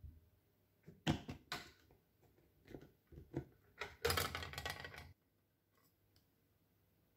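Plastic clicks and clatter from a Greek yogurt strainer container being opened: a few sharp snaps as the lid's side latches are unclipped about a second in, more clicks around three seconds, then a dense rattle of plastic parts from about four to five seconds in.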